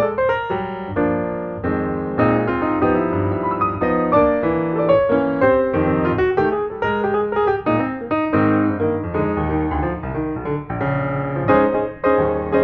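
Background piano music: a continuous piece of quick, flowing notes.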